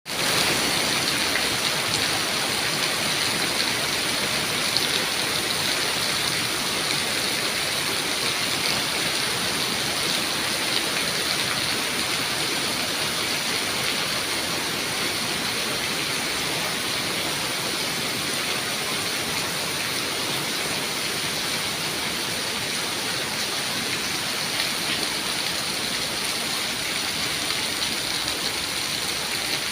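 Heavy rain pouring down steadily during a rainstorm, a dense even hiss with scattered drop patter.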